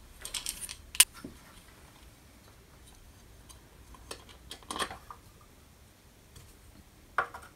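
Small metal clicks and taps from handling and fitting a sheet-metal access plate onto a drill press column: a sharp click about a second in, then scattered light taps.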